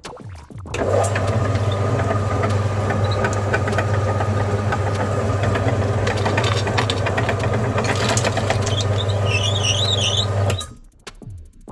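Electric meat grinder running with a steady low motor hum, hard candy lollipops cracking and crunching in it as a dense run of sharp clicks. The grinder starts about a second in and stops about a second before the end, with a wavering high-pitched squeal shortly before it stops.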